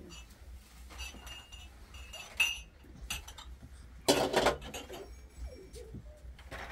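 Steel basin, metal tray and small glass tea glasses clinking and clattering as they are handled, with a few sharp clinks that ring briefly and a louder clatter about four seconds in.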